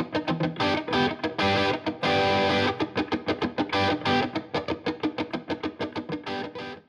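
Background music: a fast, rhythmic electric-guitar track with distortion, fading out near the end.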